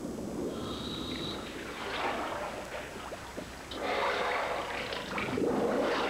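Scuba diving underwater: a regulator's breathing with gurgling surges of exhaled bubbles, several times.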